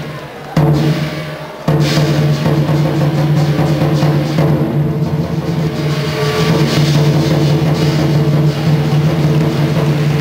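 Lion dance percussion led by a large Chinese drum. Two heavy strikes ring out and die away, then the drumming goes into fast, continuous, loud playing from about two seconds in.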